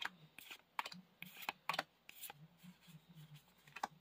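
Faint, irregular clicks and ticks of Pokémon trading cards being handled, slid and flipped one by one through a freshly opened pack, over a faint low hum.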